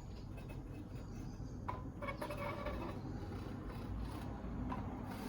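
Quiet handling sounds: light rubbing and a couple of soft taps as a square is set against the planer and its MDF guide, over a low steady hum.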